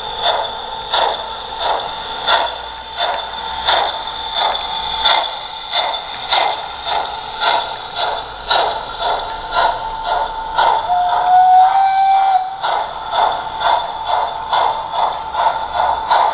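Sound decoder (ESU LokSound H0) of an LGB G-scale steam locomotive playing steam chuffs through its onboard speaker, about one every two-thirds of a second, quickening to about two a second near the end as the locomotive speeds up. A steam whistle sounds once for under two seconds about eleven seconds in.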